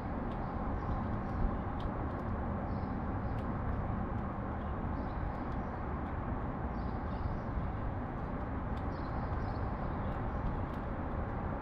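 Steady rumble of city traffic, with short high chirps from sparrows scattered through it and a few faint clicks.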